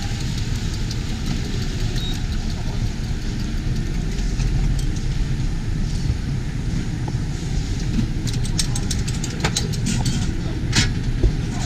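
Steady low rumble of a street-food stall kitchen at work, the extractor hood and burner running under a pan. Light clicks of utensils on metal bowls and pans come and go, thickest near the end.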